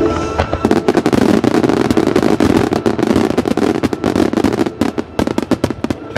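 Starmine firework barrage: a rapid run of shell bursts and dense crackling, many reports in quick succession. It starts about a second in, over the tail of the accompanying music.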